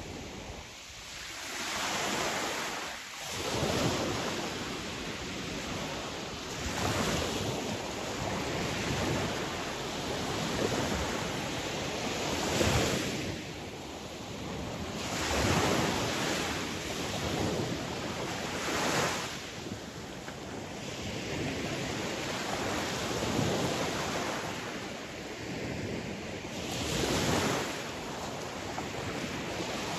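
Sea waves breaking and washing ashore, the surf swelling louder every few seconds.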